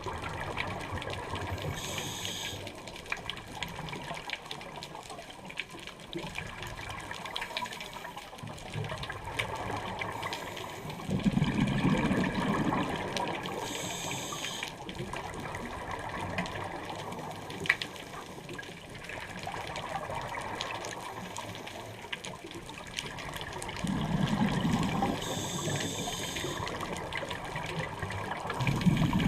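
Scuba diver breathing through a regulator underwater. A short hissing inhale comes three times, and a louder low rumble of exhaled bubbles follows later in each cycle, over steady water noise with faint clicking.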